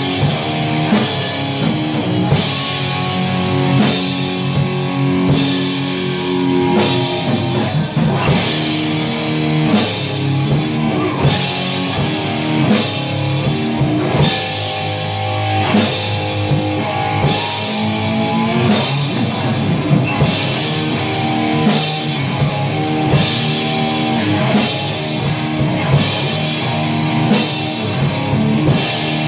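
Heavy metal music: electric guitars playing sustained chords over a drum kit, with a steady accented hit about once a second.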